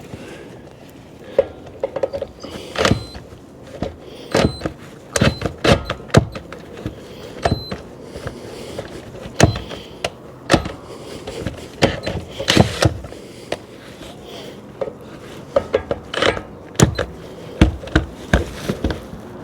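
Irregular sharp metal knocks and clanks, some in quick clusters, a few ringing briefly: hand tools and metal parts being worked on a vehicle's steering.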